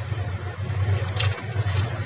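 Wire stripper biting and scraping PVC insulation off electrical wire ends, two short scrapes just past the middle, over a steady low hum.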